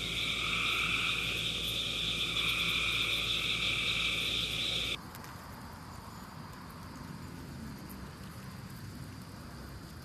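Chorus of periodical cicadas: a dense, steady, high-pitched buzz with a weaker lower whirr under it. It cuts off abruptly about five seconds in, leaving only a faint hiss.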